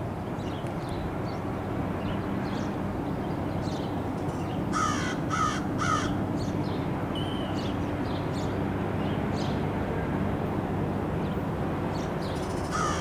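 A crow cawing three times in quick succession about five seconds in, and three times again near the end. Faint chirps of small birds and a steady low rumble run underneath.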